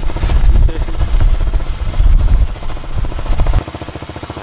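Motorcycle engine running at low revs with a steady, even pulse. Heavy wind rumble on the microphone drops away sharply about three and a half seconds in.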